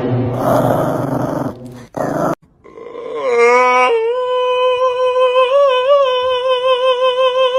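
About two seconds of rough, noisy sound that stops abruptly, then a husky howling: the howl glides up in pitch and settles into one long held note that wavers slightly.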